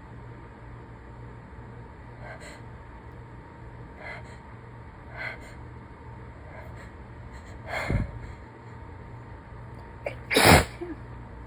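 A person sneezing while sick: a few short, breathy catching inhales build up, with a bigger burst about two-thirds of the way in, and then one strong sneeze near the end, the loudest sound.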